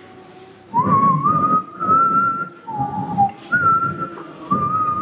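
A man whistling a slow hymn tune in short phrases with brief pauses. The first note slides up about a second in, and one lower note comes near the middle.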